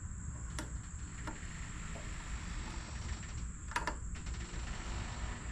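A few light clicks and taps from hands and tools working on a small-engine carburetor during reassembly, over a low steady rumble.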